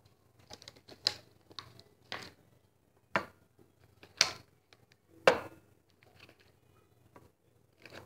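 Small plastic jars of glitter paint set down one by one on a paper-covered tabletop: about five short knocks, roughly a second apart.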